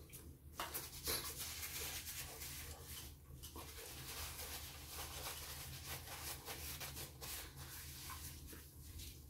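Faint rustling and rubbing of a small wrapper worked between the hands, a scratchy run of small crinkles.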